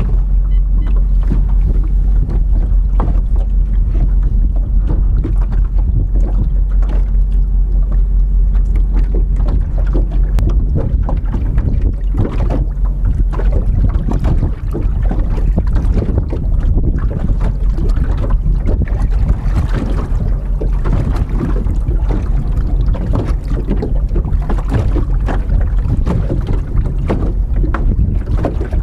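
Wind buffeting the microphone, with water slapping against a small boat's hull.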